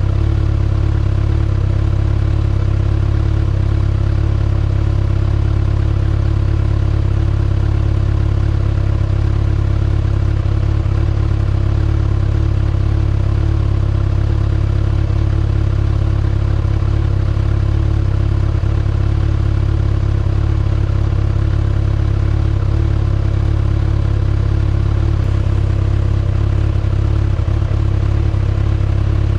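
2019 Kawasaki ZX-6R's inline-four engine idling steadily through its stock exhaust, with no revving.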